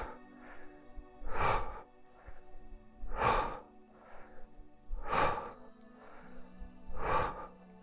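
A man breathing hard in time with two-handed kettlebell deadlift reps: a forceful exhale about every two seconds, with quieter inhales between.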